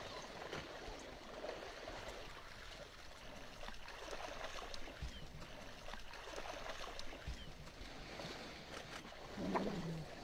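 Faint river water sloshing and splashing as an African wild dog swims. About nine and a half seconds in comes a short, louder low call.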